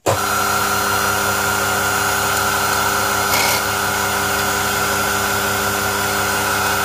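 Small lathe motor switched on and running at a steady speed with the workpiece spinning, a hum with several steady tones. A brief high hiss comes about three seconds in.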